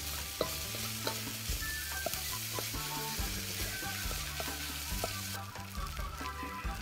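Mee goreng noodles sizzling in a wok over a gas flame while a wooden spatula stirs and tosses them, with scattered clicks and scrapes of the spatula against the wok. The hiss thins a little about five seconds in.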